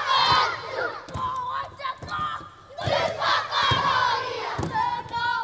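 A group of children shouting a Māori haka chant in unison, fierce shouted calls with a short break about two and a half seconds in before the next call.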